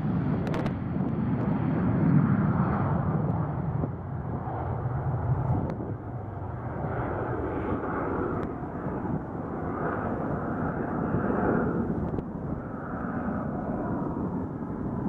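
Twin-engine business jet with rear-mounted engines taking off and climbing away, its jet engine noise loudest about two seconds in and then rising and falling as it recedes.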